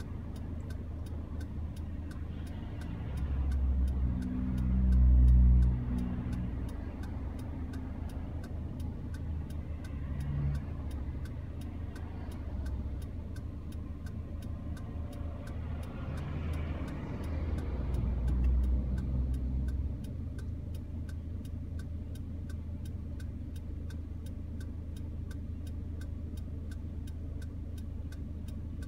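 Inside a stationary car in traffic: a steady, even ticking several times a second over a low vehicle rumble. The rumble swells twice, loudest about four to six seconds in and again shortly before the last third, as heavy vehicles pass close by.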